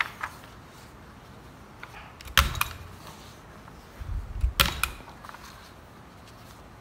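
A desk stapler worked by the wooden lever arm of a homemade staple board, clacking shut twice about two seconds apart, with softer knocks in between.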